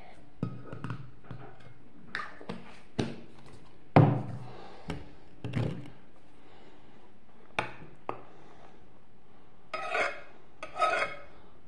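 Scattered knocks, taps and clinks of kitchen things being handled and set down, among them the shaving-foam can, with the loudest thump about four seconds in and a couple of brief ringing clinks near the end.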